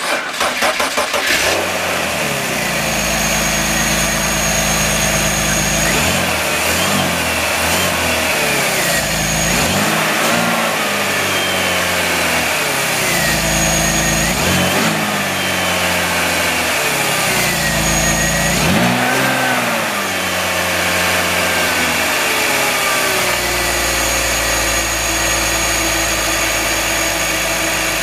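BMW 325i's inline-six engine cranking on the starter and catching right at the start, then running with several quick revs of the throttle. It settles to a steady idle for the last few seconds.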